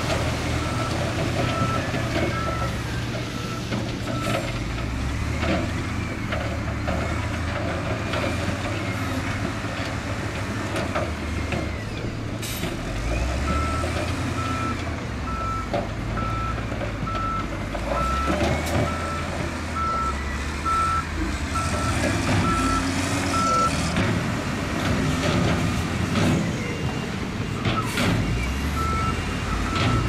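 Diesel engine of heavy construction equipment running and working under changing load, with a reversing alarm beeping about one and a half times a second in spells: at the start, for about ten seconds in the middle, and again near the end. A couple of sharp knocks stand out.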